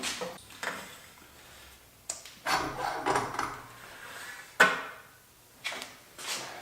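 Scattered knocks, clanks and a scrape of hand tools and metal parts being worked while a turbo is unbolted from an engine. The sharpest knock comes a little past halfway.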